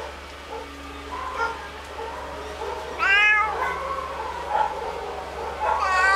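Cat meowing twice, about three seconds apart: each a loud, drawn-out call that rises and then falls in pitch, the second starting near the end.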